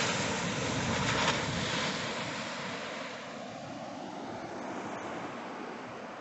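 Sea swell breaking on a reef: a rushing hiss of surf that peaks about a second in, then slowly dies away as the wave spends itself.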